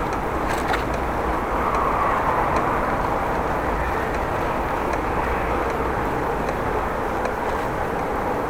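Bicycle ride with steady wind and road noise on the microphone and a faint regular tick about every 0.7 s from the bike: an unexplained ticking noise that shouldn't be there.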